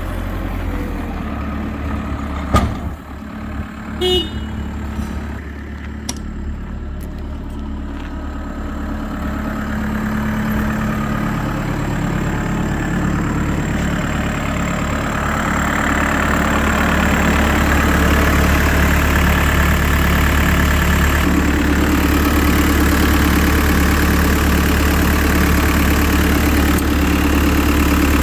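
Case SR250 skid steer loader's diesel engine running steadily, with a sharp click a few seconds in; the engine then gets louder over several seconds and steps up again about three-quarters of the way through, as it is brought up in speed.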